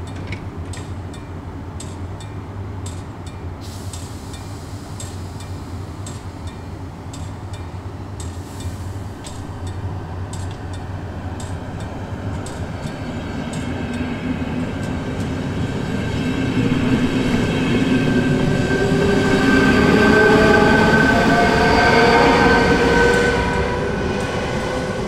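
Level-crossing warning bell striking repeatedly as a ČD CityElefant double-deck electric unit comes through. The train's traction motors whine in several tones that rise in pitch as it gathers speed, growing loudest in the second half.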